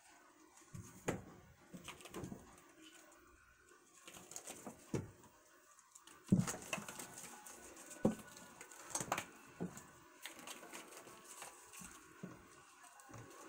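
Kittens playing around a scratching post: irregular soft thumps, taps and knocks from paws, bodies and a toy, the loudest thump about six seconds in.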